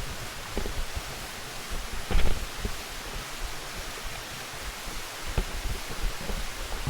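Steady rush of a mountain stream, with wind buffeting the microphone and a few thumps, the loudest about two seconds in.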